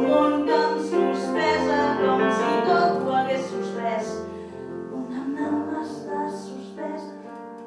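Live grand piano with a woman singing, a slow melody that grows quieter over the second half.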